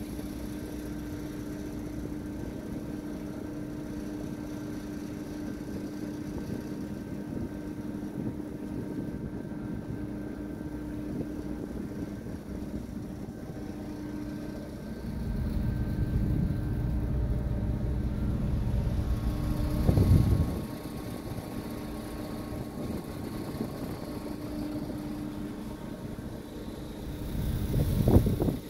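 A ferry's engines drone steadily, heard from the open deck, with a low hum throughout. Gusts of wind buffet the microphone from about 15 s in for some five seconds, and again briefly near the end.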